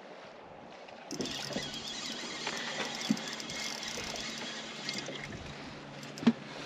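Noises on a small fishing boat: from about a second in, a steady low hum under a hiss of water, a few small knocks, and one sharp thump against the boat near the end.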